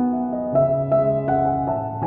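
Background music: a piano playing a melody of single notes over held low notes.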